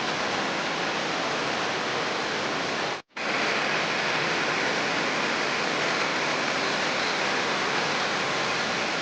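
Steady, even hissing noise with no rhythm or tone, broken by a brief dropout about three seconds in.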